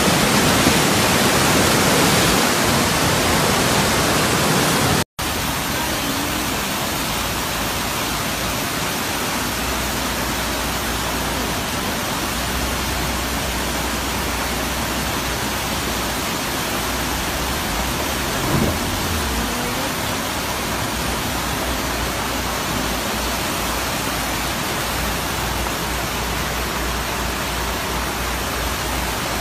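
Steady, loud rushing of heavy rain and floodwater running down a street. About five seconds in the sound cuts out for an instant and comes back a little quieter, with a short low bump later on.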